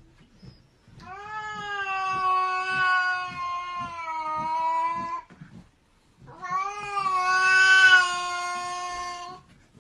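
A small grey-and-white cat yowling: two long, drawn-out wails of about four seconds each, with a short break between them. The second wail is louder and peaks near its middle.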